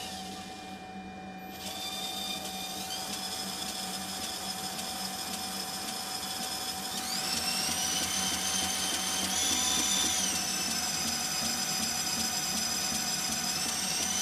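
Shop-built 2x48-inch belt grinder, set up with a small contact wheel, starting up and running on its electric motor. Its high whine steps up in pitch several times as the speed is turned up on the variable-speed control, dips about ten seconds in and rises again near the end.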